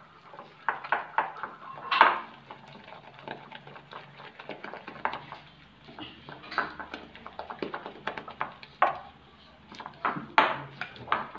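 Gram-flour batter being mixed by hand in a ceramic bowl: irregular wet slaps and squelches, with the hand knocking against the bowl, loudest about two seconds in and again near the end.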